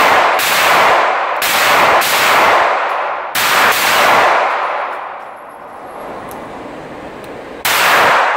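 Semi-automatic pistol fired several times in an enclosed indoor range. Each shot is a sharp bang with a long echo off the lane walls: a quick run of shots in the first few seconds, then one more near the end. Light metallic tinks of spent brass casings landing come between the shots.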